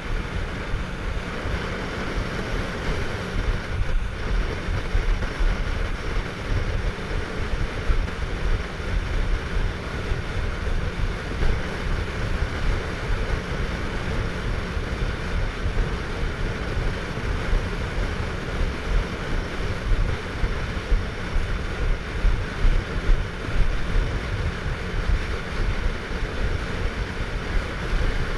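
Motorboat underway: a steady engine and rushing water noise, with wind buffeting the microphone in uneven low gusts.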